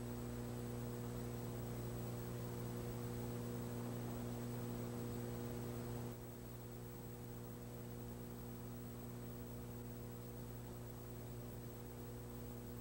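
Steady electrical mains hum with faint tape hiss from an old videotape recording, with no commentary. The hum steps down slightly in level about six seconds in.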